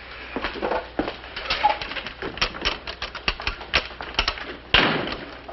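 Quick, irregular clicking and clacking, a few sharp strikes a second, with a louder clatter near the end.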